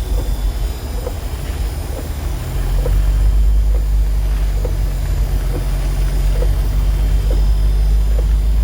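Jeep's engine and road noise heard from inside the cabin, a low steady rumble that gets louder about two and a half seconds in as the Jeep picks up speed. A faint tick repeats about once a second.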